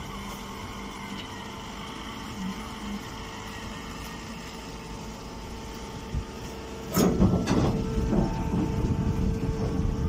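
Silage baler's machinery running with a steady hum; about seven seconds in, a sharp clack and then a louder, rough rattling rush as the compressed bale is pushed out into the woven bag.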